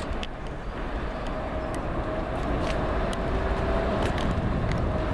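Boeing 777 freighter's GE90 turbofan engines at takeoff power: a steady deep rumble with a faint steady whine above it, growing slightly louder.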